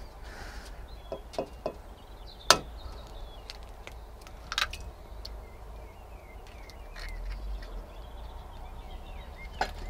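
An egg cracked against a glass measuring jug: a few light taps, then one sharp crack about two and a half seconds in, followed by smaller clicks as the shell is pulled apart over the jug.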